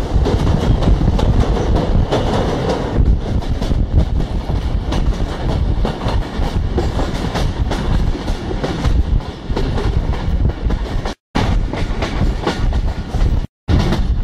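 Train running with a heavy rumble and irregular clatter of wheels over the rails. The sound cuts out to silence twice, briefly, near the end.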